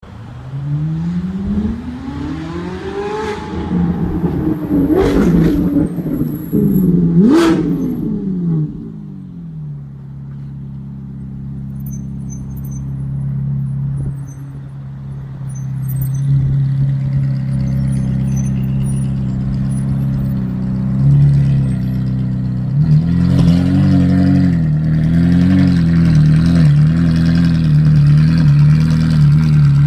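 Ferrari 458 Italia's 4.5-litre naturally aspirated V8 revved hard several times, the pitch climbing and falling back, with a few sharp cracks at the peaks. From about ten seconds in it settles to a steady idle, which becomes louder and slightly uneven from about 23 seconds in.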